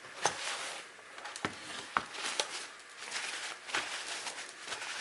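Dry paper towel dabbing and rubbing over a painted plastic blaster to blot off a watered-down black paint wash. It makes soft, irregular rustling with scattered light taps, one sharper tap about two seconds in.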